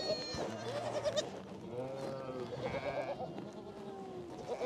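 Goats and young kids bleating: several wavering calls, one after another and sometimes overlapping.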